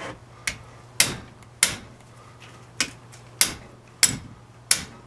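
Hand wrench working the ring gear bolts on a Dana 44 limited-slip carrier, giving a string of sharp metallic clicks about one every half second, with a short pause near the middle.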